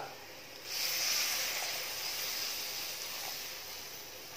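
A cup of water poured into a hot earthen clay pot of roasted chilli-and-spice paste, hissing sharply as it hits the pan about a second in, then slowly dying away.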